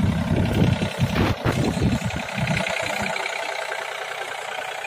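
John Deere tractor's diesel engine running as it tows a trailed air-blast orchard sprayer. The sound is rough and uneven for the first few seconds, then steadier.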